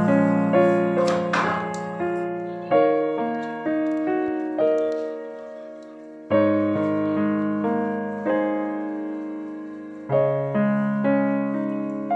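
Slow solo piano music, single notes and chords struck every second or so and left to fade.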